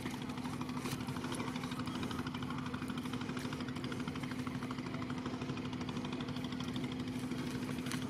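A small engine running steadily at an even speed, a constant hum with a fast regular pulse.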